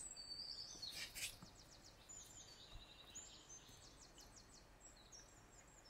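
Faint recorded forest birdsong: a few high chirps and quick trills over a soft background hiss.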